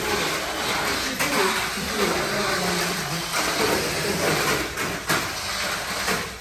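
Tamiya Mini 4WD cars running on a plastic multi-lane track: a steady whirring rattle from the small motors and rollers, with a few sharper clacks. Faint voices in the background.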